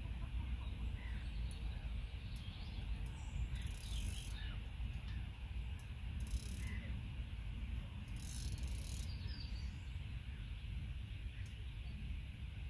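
A fixed-spool fishing reel being wound in three short spells, about 4, 6 and 8 seconds in, with birds chirping and a steady low wind rumble on the microphone.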